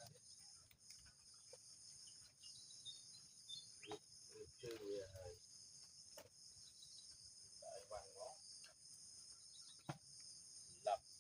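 Steady, faint, high-pitched trilling of an insect chorus, with faint voices in the distance briefly near the middle.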